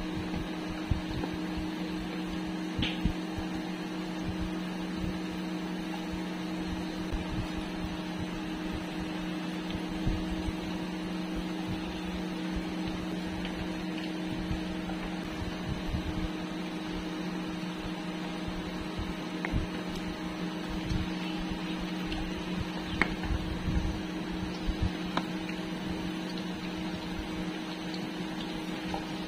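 Induction cooktop humming steadily with its cooling fan, under the sizzle of oil deep-frying egg-and-bread fritters. Now and then a slotted metal spoon clicks against the pan.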